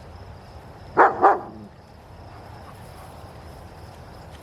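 A dog barking twice in quick succession, about a second in.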